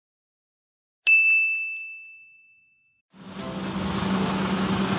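A single bright bell-like ding about a second in, ringing and fading away over about two seconds. From about three seconds in, a steady whooshing sound with a low hum begins.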